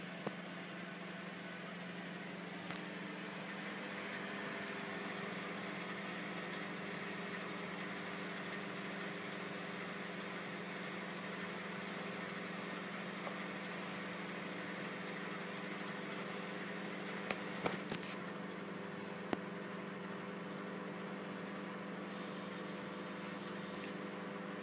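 Microwave oven running with a steady electrical hum, a few short clicks scattered through it.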